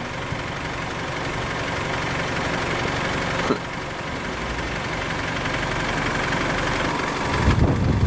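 Engine idling steadily, with louder low rumbling starting about seven and a half seconds in.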